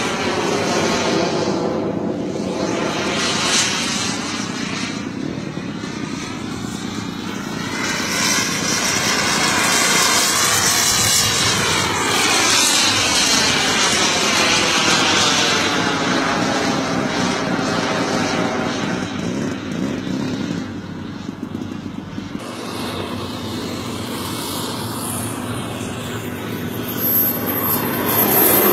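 The jet engine of a radio-controlled scale F-16 model, heard as a continuous rushing whine that swells and fades as the model flies past, with a hollow, sweeping rise and fall in pitch. It grows louder again near the end as the jet rolls along the runway.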